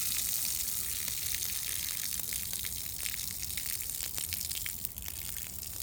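Water rushing out of a water heater tank through its opened drain valve and hose as the tank is drained: a steady hiss that eases slightly, with scattered small crackles.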